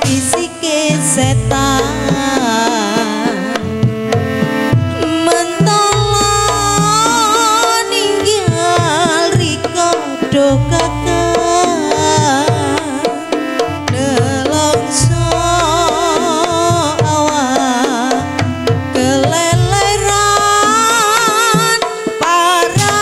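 Live Reog gamelan music: kendang hand drums beating steadily under a wavering melody line, with a deep low stroke about every four to five seconds.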